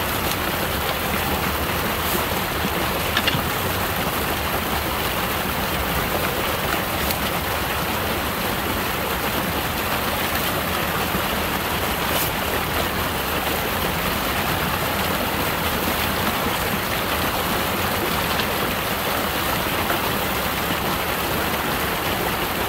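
Shallow water rushing and splashing steadily down a narrow channel.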